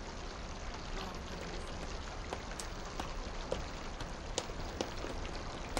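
Water splashing steadily from a stone courtyard fountain, with scattered light clicks and taps.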